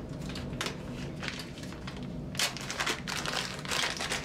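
A small plastic packet of plumbing fittings crinkling as it is handled and pulled open by hand. Short crackles come in bursts, growing busier and louder about two and a half seconds in.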